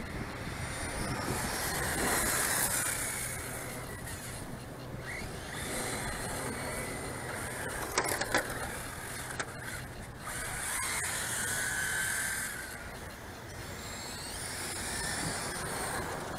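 Radio-controlled racing cars driven fast on paving, their motors giving a high-pitched whine that swells and fades and glides up and down in pitch as they accelerate and pass. A sharp click or two about eight seconds in.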